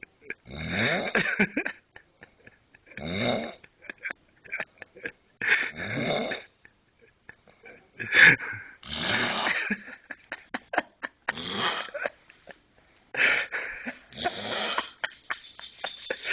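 A man snoring, one snore every two to three seconds, about six in all, with faint clicks in between.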